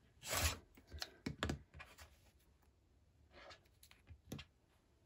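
Rotary cutter slicing along the edge of a ruler through the paper foundation and fabric: one rasping cut about half a second long near the start. Light clicks and brief scrapes follow as the cutter, ruler and trimmed scrap are handled.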